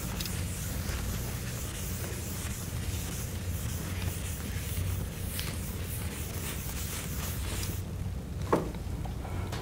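Chalk writing on a blackboard, faint and scratchy, over a steady low room hum. The chalk stops near the end, and a single short knock follows.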